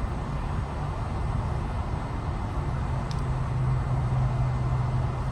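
Steady low rumble with a faint low hum.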